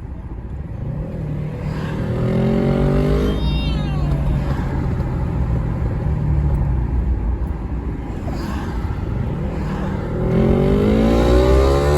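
Yamaha R3's parallel-twin engine, loud, accelerating: the revs rise, drop sharply at an upshift about three and a half seconds in, then climb again in the next gear near the end.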